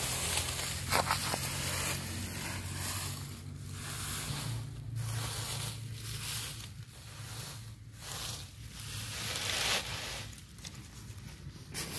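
Dry fallen leaves and dry bamboo leaves rustling and crackling in irregular bursts as they are scooped up by hand and pressed into a wicker basket.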